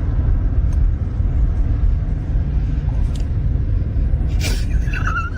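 A loud, steady low rumble, with a brief high, wavering squeak near the end.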